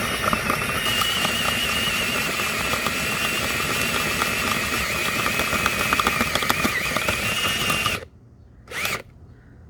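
DeWALT 18-volt cordless drill boring into material with a 1.5-inch bit, the motor whining steadily under load for about eight seconds before stopping abruptly. A brief second burst follows about a second later.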